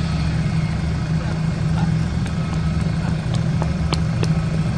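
Airbus A320's IAE V2500 turbofan engines running at low taxi thrust, a steady hum with a thin whine above it as the airliner rolls slowly. A few light clicks near the end.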